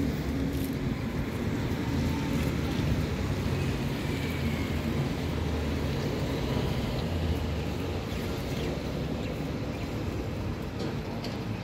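Steady low rumble of outdoor background noise, even in level throughout, with no distinct sound standing out.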